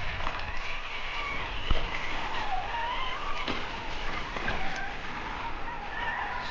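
Traxxas TRX-4 1/10-scale RC crawler's electric motor and drivetrain whining, the pitch rising and falling with the throttle, with scattered clicks and knocks as the truck moves over rough ground.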